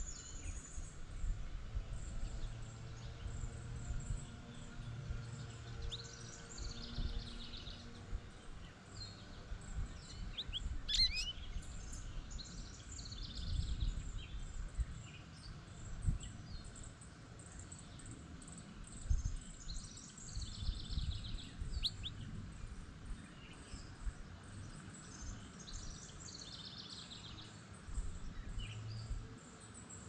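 Small songbirds chirping and calling on and off, short chirps and trills with a louder cluster of quick chirps about eleven seconds in, over a low steady background rumble.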